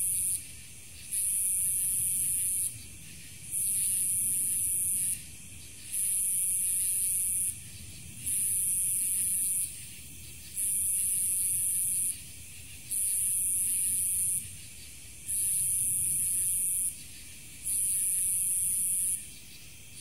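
High-pitched insect buzzing in regular bursts, each about a second and a half long with a short gap between, about nine in all, over a faint low rumble.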